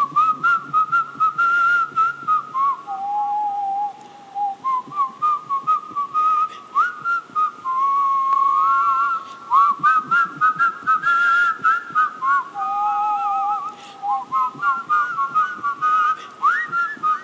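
A person whistling a melody of short notes, some sliding up into pitch, with no singing behind it.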